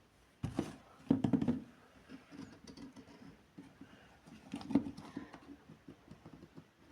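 Irregular knocks, clicks and rustling, as of something being handled, with a cluster about a second in and a sharp knock near five seconds.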